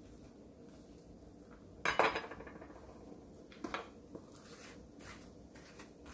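Metal spoon scraping the pulp and seeds out of a halved bottle gourd on a wooden cutting board. There is a sharp clink about two seconds in, and a few lighter knocks come later.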